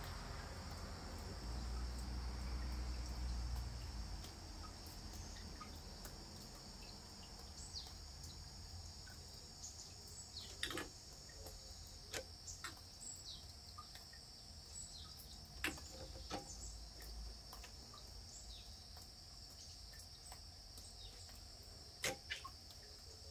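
Steady high chorus of crickets, with a low rumble in the first few seconds. A few short high chirps and scattered sharp clicks come through over it.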